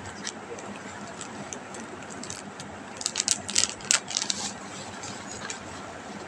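A quick cluster of light clicks and crinkles from a small packet of thin metal hoop earrings being unwrapped and handled, about three seconds in, over a low steady background.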